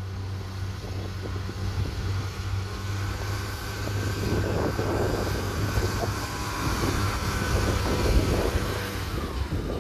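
Class 143 Pacer diesel multiple unit pulling away and passing close by: a steady diesel engine drone, with a rumble from the wheels on the rails building from about four seconds in as the train draws alongside.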